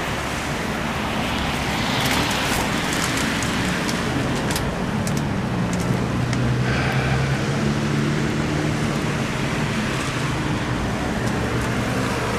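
Evening rush-hour traffic on a rain-soaked street: cars passing with tyres hissing on the wet road. A low, steady engine hum joins in from about four seconds in.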